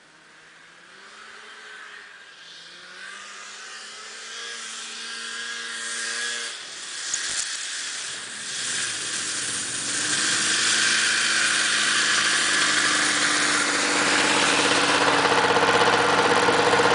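A 1996 Polaris XCR 440 snowmobile's two-stroke engine revving as the sled approaches, growing steadily louder. Its pitch climbs over the first several seconds and breaks off briefly about seven seconds in, then the engine and track are running loud and close near the end.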